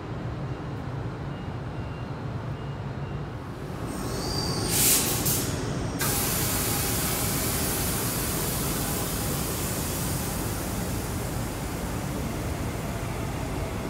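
Train's air brakes hissing over a steady low rumble: a short burst of hiss about five seconds in, then a sudden steady hiss that starts about a second later and runs on.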